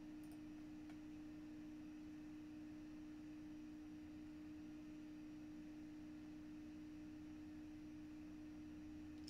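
Near silence: a faint, steady hum tone in the background, with two very faint ticks within the first second.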